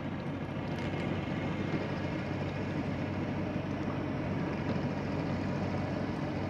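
Small river boat's engine running steadily at constant speed, an even hum with no change in pitch.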